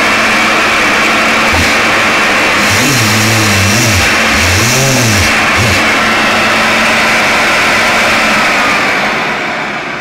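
Vacuum-cleaner turbine motors of a homemade central vacuum running at speed, a loud rush of air with a steady whine, here at only half power. A few low wavering tones come in the middle, and the sound dies away near the end as the motors wind down.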